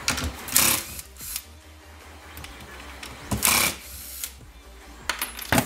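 Cordless power screwdriver whirring briefly twice, about three seconds apart, as it backs out the screws holding a workpiece down. A few sharp knocks near the end.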